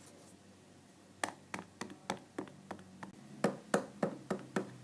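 Phone keypad buttons being pressed again and again: short sharp clicks at about three a second, starting about a second in.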